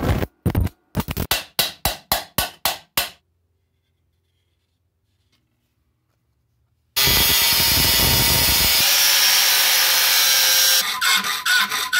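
Stick welding crackling, followed by about eight short crackling bursts that stop about three seconds in. After a near-silent gap, a loud steady machine noise starts about seven seconds in and runs for about four seconds, then gives way to quick back-and-forth hand strokes on metal, about four a second.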